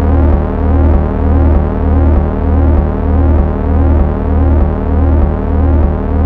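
Synthesized suspense soundtrack: sustained electronic tones over a low bass pulse about twice a second.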